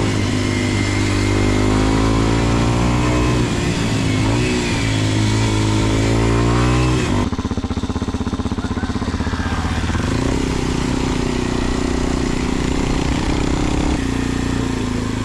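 Kawasaki KLX230SM's single-cylinder engine running under way through a Delta Barrel 4-S exhaust, its pitch dropping and rising with throttle and gear changes, over steady wind rush on the camera's microphone. The sound changes abruptly about seven seconds in and again near the end.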